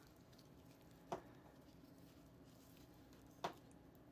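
Near silence with two short clicks, about a second in and again near the end: small plastic icing tubes being handled on a tabletop.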